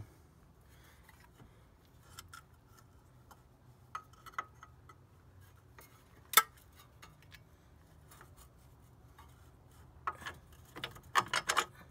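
Scattered metallic clicks and clinks as the wheel hub and brake rotor assembly is shifted by hand and lined up for its bolts, with one sharp clink about six seconds in and a quick run of clicks near the end.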